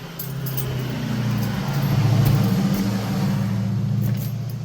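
A motor vehicle's engine running as a steady low drone, growing louder about two seconds in and fading near the end.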